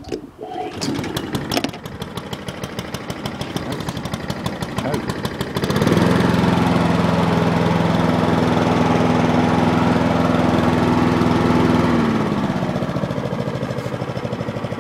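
Small Honda four-stroke engine on a Mountfield 462R push mower starting from cold on choke, catching at once and running roughly. About six seconds in it picks up to a steady higher speed, and about twelve seconds in it drops back to a lower speed.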